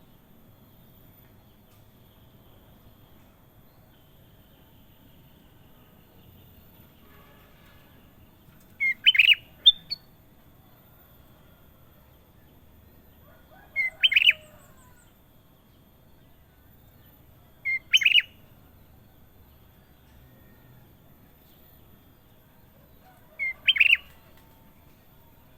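Kutilang emas bulbul calling in four short phrases, a few seconds apart; each is a brief lead-in note followed straight away by a louder clear burst.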